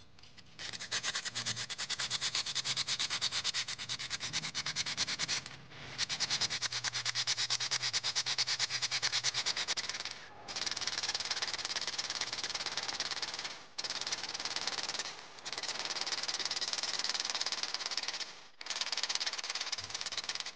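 Sandpaper rubbed by hand over a rusty metal plumb bob: fast back-and-forth scraping strokes in several bouts, with brief pauses between them.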